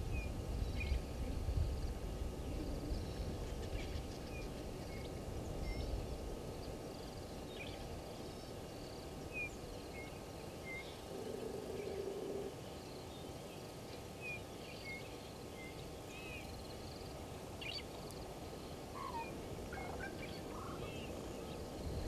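Bush ambience: scattered short, high bird chirps over a low rumble, with a brief low hum about eleven seconds in.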